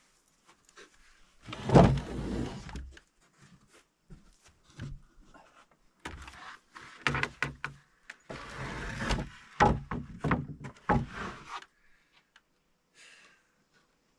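Plywood and framing lumber being handled: a heavy thump and scrape of wood on wood about two seconds in, then a run of knocks, bumps and scraping from about six to twelve seconds in.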